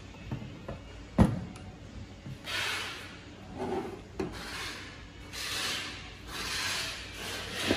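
Hands handling a copier upper fusing belt unit and its metal end brackets on a wooden table. There is a sharp knock about a second in, then several short scraping, rubbing sounds against the wood, and another knock near the end.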